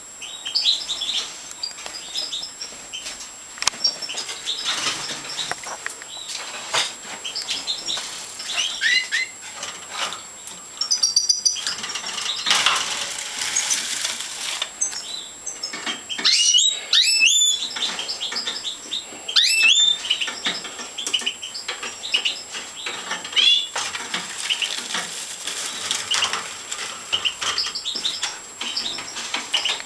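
Caged goldfinches of the large major race chirping and twittering, with repeated sharp rising call notes in the middle stretch, mixed with wing flutters and rustling.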